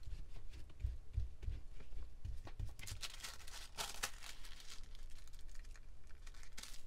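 Thin decoupage paper rustling and crinkling as it is handled, laid down and smoothed by hand onto a glued sheet, with soft thuds of the hands on the work surface. The rustling is busiest around the middle.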